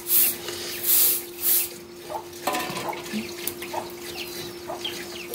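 Water splashing onto a concrete floor in three quick gushes in the first two seconds, then fainter splashes and drips.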